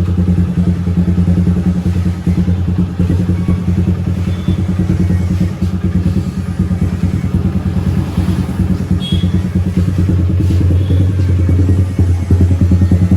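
Suzuki Gixxer's single-cylinder engine idling steadily with an even, rapid pulse, just after a tappet adjustment, while oil and diesel residue burn off the hot engine.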